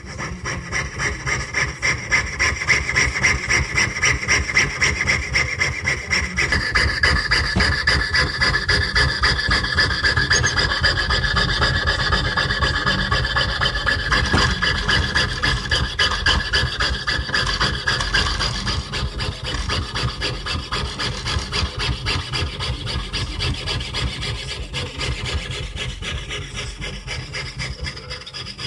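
A jeweler's saw blade cutting through a copper-nickel clad Susan B. Anthony dollar, with rapid, even back-and-forth rasping strokes. A high metallic whine runs over the strokes and changes pitch about six seconds in.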